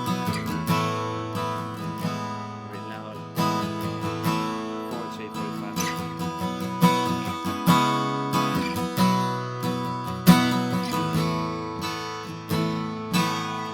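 2001 Gibson J-45 acoustic guitar being played, a continuous run of picked notes and chords ringing into one another.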